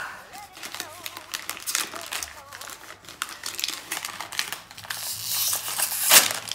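Packaging crinkling and rustling as it is handled, a quick run of small crackles that swells into a louder rustle about five to six seconds in.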